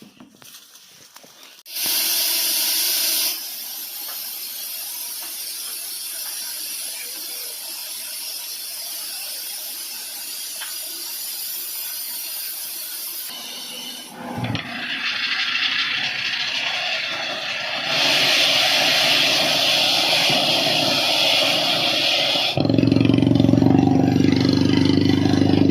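Pneumatic water-well drilling rig at work: a steady rush of compressed air that jumps abruptly in loudness several times. Near the end a steady engine hum joins in and becomes the loudest sound.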